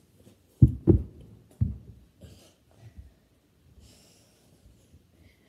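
Three heavy thumps of a child landing from jumps on a floor, all in the first two seconds, followed by fainter knocks and breaths.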